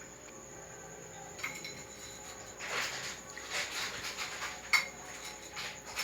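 Kitchen handling noises: scattered rustling and soft clicks of utensils and dishes, with one sharp clink a little before the end.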